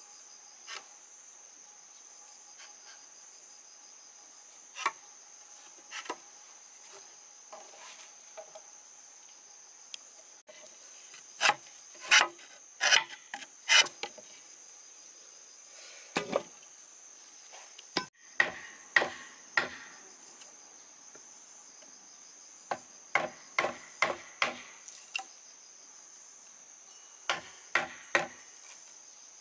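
Sharp knocks of wood or bamboo being struck or chopped with a tool, some single and others in quick runs of two to five, over a steady high drone of insects.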